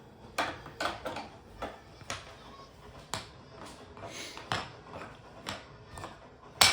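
Toy train track pieces clicking and clattering together as they are handled and rummaged through: a dozen or so irregular knocks, the loudest near the end.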